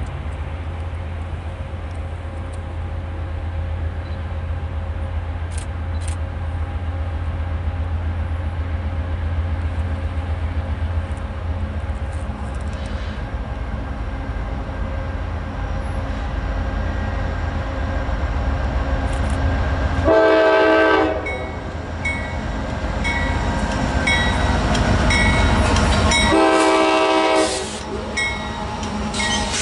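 Diesel locomotive rumbling steadily and growing louder as it approaches. It then sounds its air horn in two blasts about a second long, some six seconds apart, with a third blast starting at the very end.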